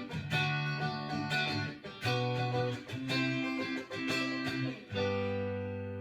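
Clean electric guitar tone, a Fender Stratocaster through a 1980 Fender Pro Reverb amp, playing a short phrase of picked chords and notes. It ends on a chord about five seconds in that is left ringing out.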